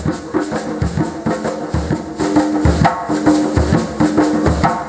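Caribbean music with a steady beat, led by hand drums and a shaker.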